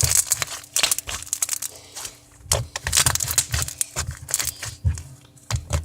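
Slime being squished and pressed by hand: a run of wet, irregular crackles and pops as air bubbles in the slime burst.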